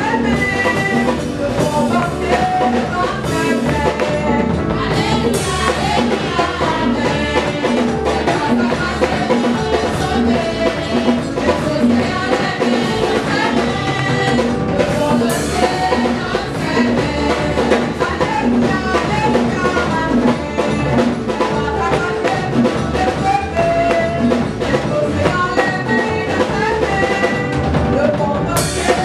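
Gospel praise song sung by women's voices into microphones, with a drum kit keeping a steady beat.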